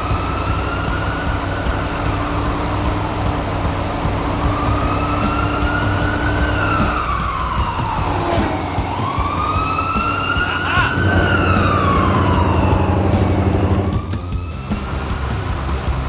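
Emergency-vehicle siren wailing in slow rising and falling sweeps, about two full cycles, over a steady engine rumble.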